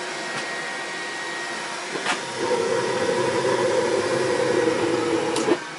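A motor-driven machine running with a steady whir; about two and a half seconds in a louder droning hum joins it, then cuts off suddenly near the end.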